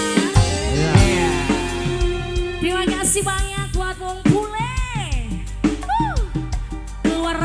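Live band music with a steady drum beat and a melody line that slides up and down in pitch.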